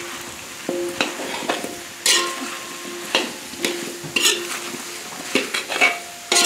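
A metal spoon stirs chickpeas and potato chunks in a large aluminium pot, scraping and knocking against its sides about once or twice a second, with the pot ringing briefly after some knocks. Under the stirring the chana and potato curry sizzles steadily in hot oil.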